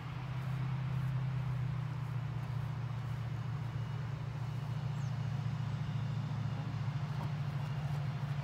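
A motor engine's steady low hum that swells up within the first second and holds on.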